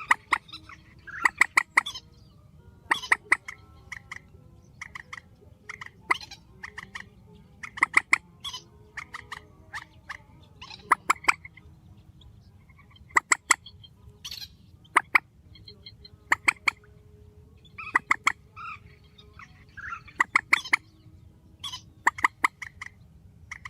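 Swamphen (Vietnamese 'chim trích') calling loudly: short, sharp notes in quick clusters of two to five, repeating every second or two.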